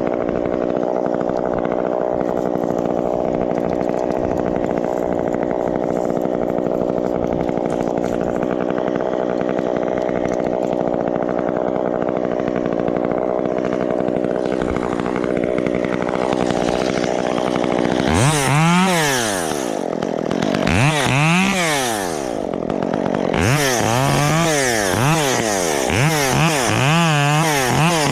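Chainsaw engine running at a steady speed for the first part. From about two-thirds of the way in it is revved up and down again and again, rising to full speed and dropping back several times, with a hiss at the high-speed peaks.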